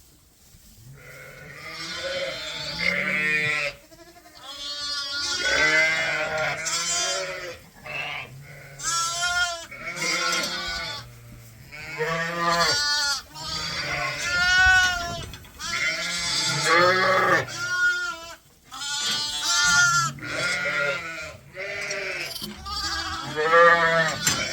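Sheep bleating: ewes and lambs calling over one another in an almost unbroken run of wavering bleats, some deep and some high-pitched.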